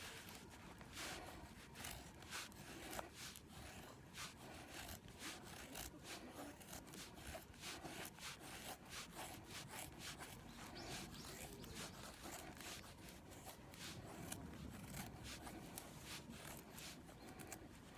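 Repeated scraping strokes of a blade working wood, a couple of strokes a second, faint.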